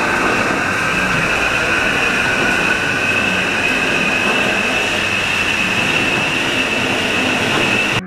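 Sole S77 treadmill running: steady belt rumble with the drive motor's whine rising slowly in pitch as the speed climbs. It cuts off suddenly at the end.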